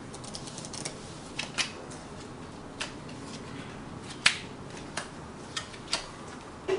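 Laminated playing cards being laid down and turned over on a cloth-covered table: a scattered series of light clicks and slaps, the sharpest about four seconds in.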